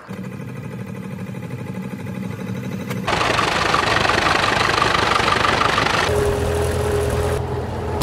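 Engines of old tractors and steam engines, from three short clips cut together. The sound changes abruptly about every three seconds: first a steady engine note, then a louder rushing noise, then a tractor engine running, heard from the driver's seat.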